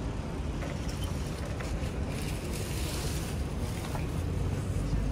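Street ambience: a steady rumble of road traffic with wind buffeting the microphone, and a louder hiss for about a second and a half a couple of seconds in.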